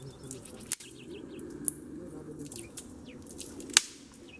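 Dry dead twig tips being handled and snapped, giving a few sharp cracks, the loudest near the end, which mark the wood as dry enough to light. Small birds chirp faintly behind.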